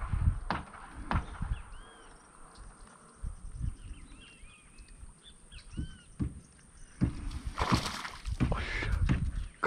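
Footsteps on grass at the start, then small birds chirping in short arched calls, and a louder burst of rustling noise near the end.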